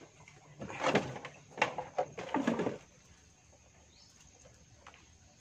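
Rustling and knocking of a net crab trap being handled, in a cluster of irregular noises during the first half.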